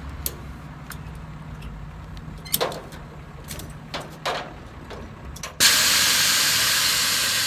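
A few short clanks as the winch strap is rigged, then about five and a half seconds in a sudden loud rush of air as a tire on the F-150 mud truck breaks its bead and deflates, the hiss running on and slowly fading.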